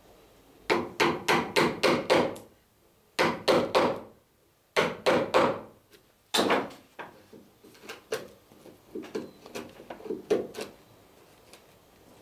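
Hammer driving a wood chisel into a wooden boat stem, cleaning up the plank rebate. The blows come in quick runs of three to six, about four a second, with short pauses between. After one louder blow about six seconds in, lighter, scattered taps follow.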